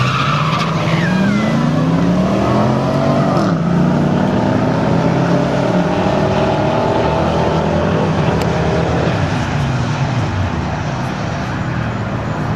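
Dodge Ram Rumble Bee's Hemi V8 at full throttle on a drag-strip launch, its pitch climbing through the gears with upshifts about three and a half seconds in and about nine seconds in, then fading as the truck pulls away down the track.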